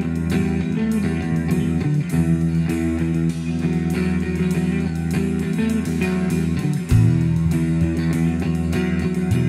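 Heavy stoner rock band playing: electric guitar and bass guitar riffing over a drum kit with steady cymbal and drum strokes, with a loud accent about seven seconds in.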